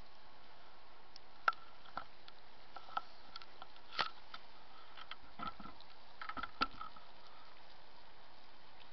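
Steady background hiss with a scattering of small, sharp clicks and ticks, the clearest about a second and a half in, at four seconds and near six and a half seconds.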